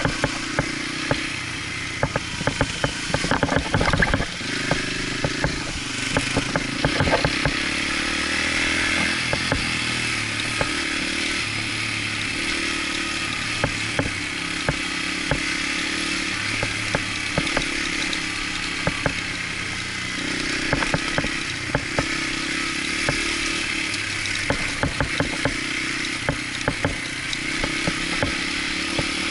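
Dirt bike engine running while riding, its pitch stepping up and down as the throttle opens and closes. Frequent short clicks and rattles, thickest in the first few seconds.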